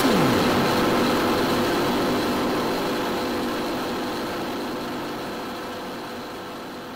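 Steady drone of a light aircraft's engine and propeller in flight, fading out gradually.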